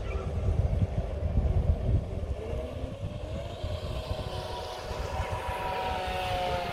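Radio-controlled speedboat's motor whining, rising in pitch from a few seconds in and then holding steady as the boat comes close, over a low rumble that is loudest at the start.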